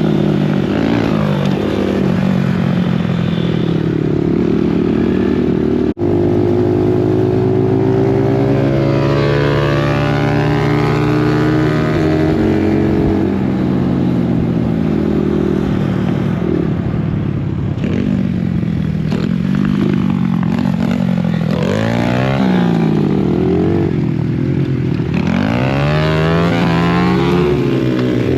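Dirt bike engine running under way, its pitch rising and falling over and over as the throttle opens and closes and the gears change. There is a brief break about six seconds in.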